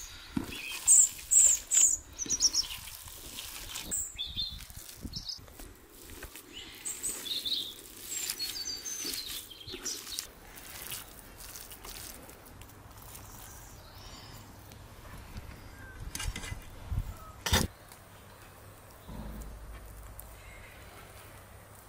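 Bare hands squeezing and pulling sticky raw minced meat on an enamel plate, making soft wet squelches, with birds chirping at times. A single sharp knock comes about 17 seconds in, and the handling grows quieter toward the end.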